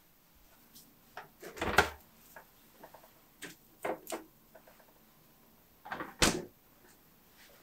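Refrigerator door being opened and shut while the wrapped cookie dough is put inside to chill. There is a loud knock about two seconds in, a couple of light clicks around four seconds, and the door closing with a thud about six seconds in.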